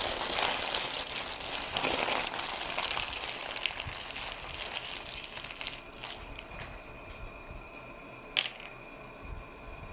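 Close-up chewing of a crunchy lettuce-wrap sandwich with cucumbers: crackly, wet crunching that fades after about six seconds, then a single sharp click near the end.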